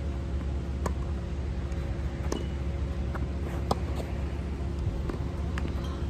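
Tennis balls struck by rackets in a rally, sharp pops about every second and a half, the loudest about halfway through, with a steady low hum underneath.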